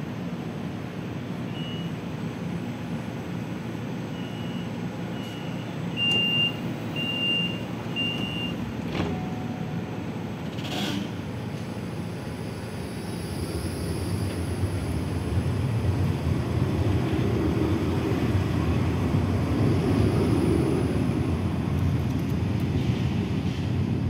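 Bombardier 4200-series tram beeping a series of high warning tones, which come faster and louder about six seconds in, as its doors close for departure. A short hiss follows near the middle. Then the tram pulls out, and a low running rumble grows steadily louder.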